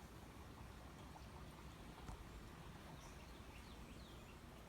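Near silence: faint outdoor ambience with a few faint, short bird chirps in its second half.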